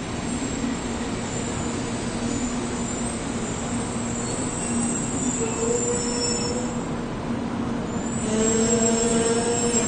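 Shinkansen bullet train moving alongside the platform, its wheels rumbling steadily under a high electric whine. A whining tone comes in around the middle and again, louder, near the end.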